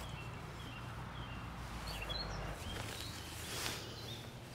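Faint open-air ambience: small birds chirping briefly now and then over a low steady background noise, with a soft brushing sound about three and a half seconds in.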